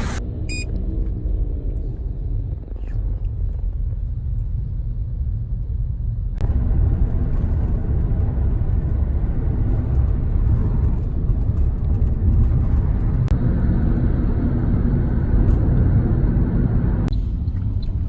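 A steady low rumble. It steps up in level about six seconds in and changes abruptly again near the end.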